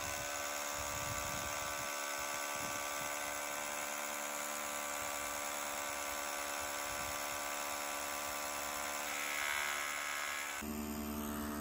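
Milwaukee M12 cordless SDS-plus hammer drill boring into a stone wall: a steady, even buzzing drone from the motor and hammer action. About ten and a half seconds in, the drone shifts abruptly to a different pitch.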